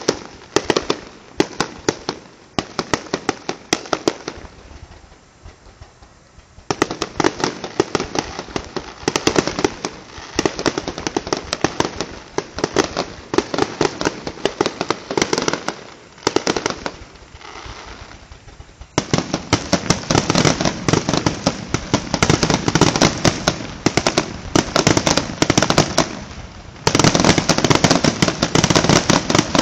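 Aerial fireworks display: rapid, overlapping bangs and crackling. It eases off briefly a few seconds in, then grows louder and denser over the last third.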